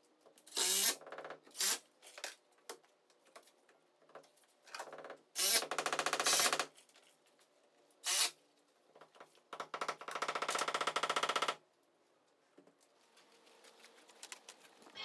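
Cordless drill-driver running in several bursts of one to two seconds, driving screws while fitting hardware to a wooden door, with quiet gaps between bursts.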